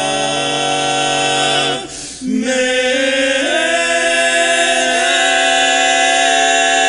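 Barbershop quartet of four men singing a cappella in close harmony, holding long sustained chords. The chord breaks off briefly about two seconds in, then a new chord swells and shifts twice more.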